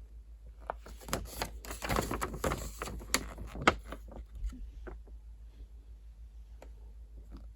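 Rustling and clicking of packaging and papers being handled, busiest in the first half with a sharp click near four seconds in, then a few scattered ticks.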